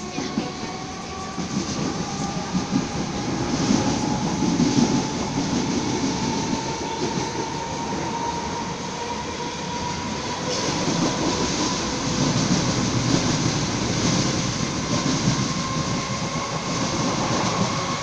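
Electric commuter train heard from inside the carriage: the wheels rumble and clickety-clack over the rails, under a thin motor whine that slowly rises in pitch.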